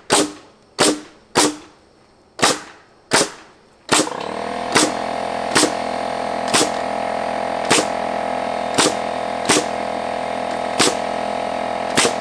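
Pneumatic 21-degree framing nailer in rapid-fire (bump) mode, driving nails into a wooden top plate with a sharp shot about every second, around fourteen in all. About four seconds in, a steady motor hum starts and carries on under the shots.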